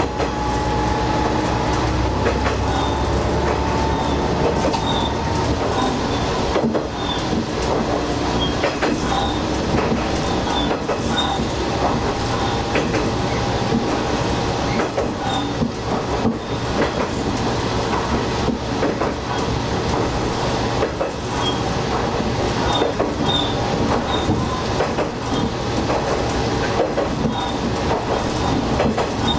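Diesel railcar running on jointed track: a steady low engine drone under wheel rumble, with irregular clacks over the rail joints. The engine note eases off about two seconds in and strengthens again about halfway through.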